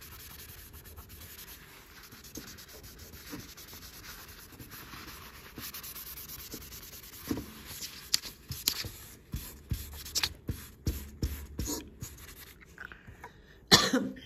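Graphite pencil shading on paper. It starts as a steady scratchy rubbing, and from about halfway it turns into a run of short separate strokes. A sharp knock comes near the end.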